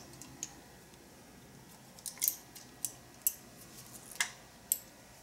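Light metallic clicks and ticks, about seven of them spaced irregularly, as fingers work the ignition points out of an early Harley-Davidson knucklehead distributor.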